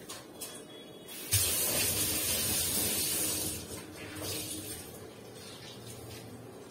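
Kitchen tap turned on, water splashing into the sink: it starts suddenly about a second in, runs strongly for about two seconds, then eases off, with a smaller splash a little later.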